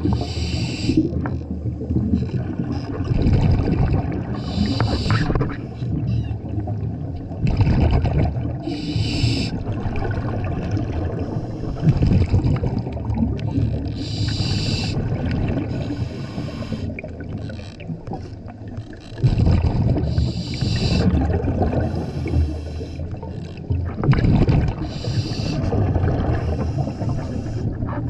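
A scuba diver breathing through a regulator, heard underwater: a hissing inhale comes about every four to five seconds, and rumbling exhaled bubbles fill the gaps.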